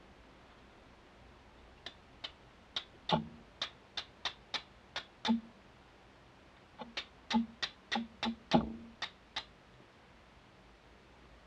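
Flint and steel: a steel striker scraped hard against a flint to throw sparks onto charcloth, in two runs of about ten quick, sharp strikes each with a short pause between. The charcloth takes a spark and glows red.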